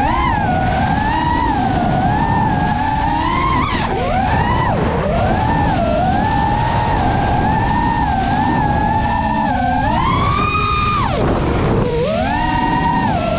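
FPV quadcopter's electric motors and propellers whining. The pitch swings up and down with the throttle, climbing sharply about three and a half seconds in and again near the end before dropping away. Under the whine runs a steady rush of wind and propeller wash.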